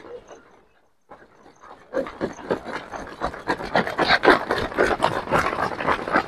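Rapid, overlapping footfalls of a large pack of runners on a synthetic running track, starting about two seconds in and getting louder as the pack comes close.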